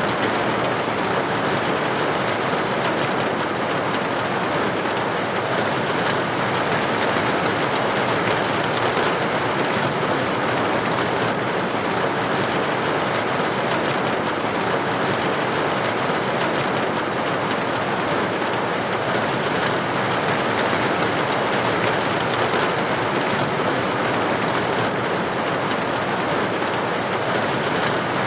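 Steady rain pattering against a window pane, an even hiss of drops.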